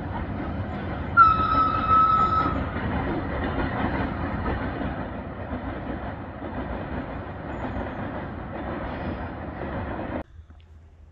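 Electric freight train with tank wagons passing, a steady rumble of wheels on track, with a high steady tone lasting about a second just after it begins. The sound cuts off suddenly near the end.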